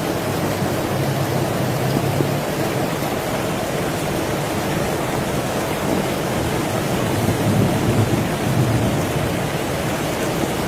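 Heavy rain falling steadily, with low rumbles swelling at the start and again about seven seconds in.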